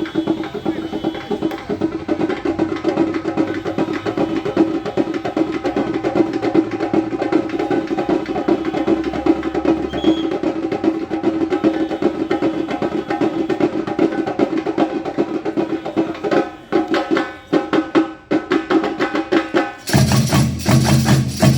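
Instrumental music: fast, dense percussion over a steady held tone, turning choppier toward the end. About 20 seconds in, a louder, lower pitched sustained tone comes in.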